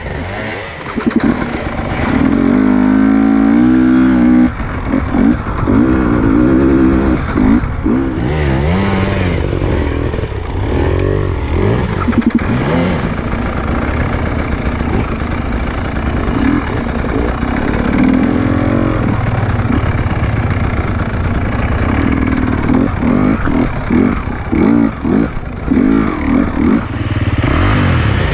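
Enduro motorcycle engine being ridden, the revs rising and falling as the throttle is repeatedly opened and closed, with short drops in between.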